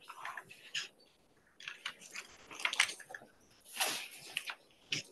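Irregular scuffs and rustles of a cloth rubbing across a chalkboard, in short bursts that cut in and out.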